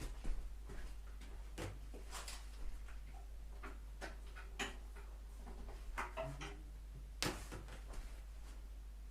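Scattered light clicks and knocks, with one sharper knock about seven seconds in, over a steady low hum.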